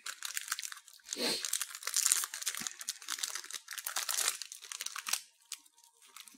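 Plastic snack wrapper of a cream rusk packet crinkling and tearing as it is pulled open by hand, a dense crackling that thins out about five seconds in.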